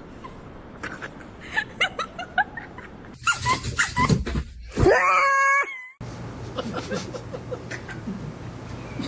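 A dog yipping and barking in short high calls, then a loud howl about five seconds in that rises and holds for nearly a second. After a sudden cut, softer yips go on.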